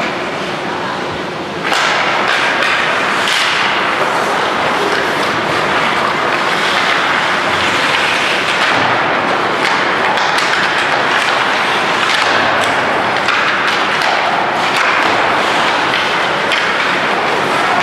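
Ice hockey play: skate blades scraping the ice, sticks clacking and thuds against the boards, getting louder about two seconds in as play restarts from a faceoff.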